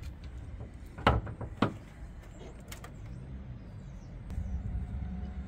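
A van's bonnet being released and lifted open: two sharp metallic clunks about half a second apart, then a low steady rumble near the end.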